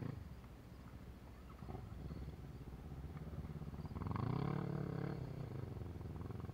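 Distant off-road quad engines running over a sandy track. One rises in pitch into a rev about four seconds in, then eases off.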